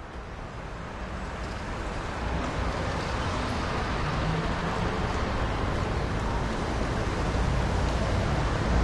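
Train rumble with a rushing roar and a deep low rumble, growing louder over the first few seconds and then holding steady.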